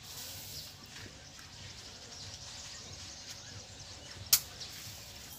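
Steady low background noise with a single sharp clink of kitchen utensils about four seconds in.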